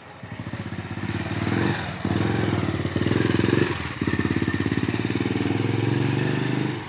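A motorcycle engine running with a fast, even pulsing, climbing in level over the first two seconds and then holding, with short dips about two, three and four seconds in.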